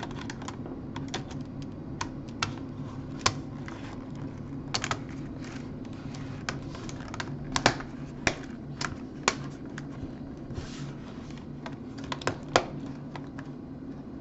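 Scattered sharp plastic clicks and taps, singly and in small clusters, from a Toshiba Portégé 660CDT laptop's keyboard and plastic trim being handled and pressed back into place, over a steady low hum.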